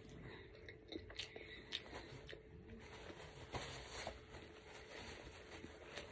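Close-up chewing of an everything bagel sandwich with egg, cheese and chorizo: soft, scattered mouth clicks and smacks. A paper napkin rustles as it is used to wipe hands and mouth.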